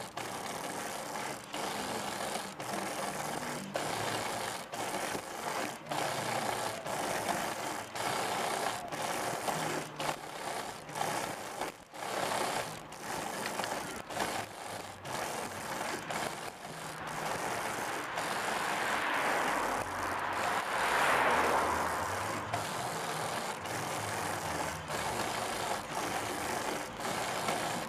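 Hand-powered tadpole trike rolling along a paved path: its push-pull hand-lever drive clicks regularly, a little more than once a second, over a steady rush of tyres on the road. About two-thirds of the way in, a louder rush swells and fades.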